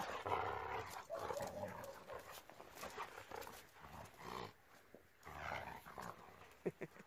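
Siberian huskies growling and grumbling at each other as they scuffle. The sound is louder in the first second or so, then fainter. Two brief sharp sounds come near the end.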